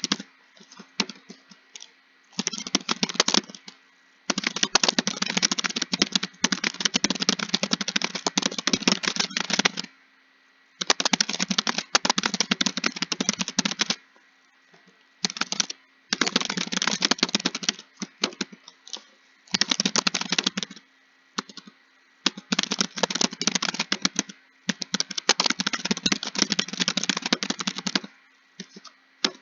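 Computer keyboard typing: fast runs of key clicks lasting a few seconds each, broken by short pauses.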